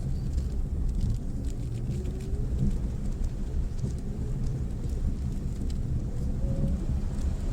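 Mitsubishi Pajero Mini kei 4x4 driving over a rough gravel track: a steady low engine drone with a faint whine that rises twice, and small clicks of stones under the tyres.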